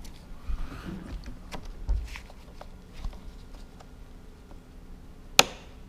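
Small clicks and dull knocks from parts of a Mercedes W211 sunroof mechanism being handled and fitted, with one sharp, loud click about five and a half seconds in.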